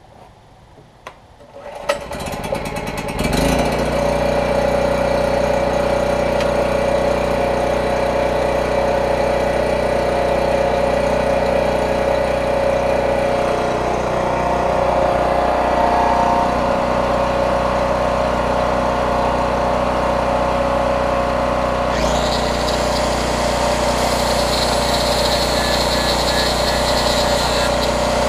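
Champion portable generator's small engine starting up after a brief clatter, then running steadily. About three quarters of the way in, a higher whine joins the engine sound.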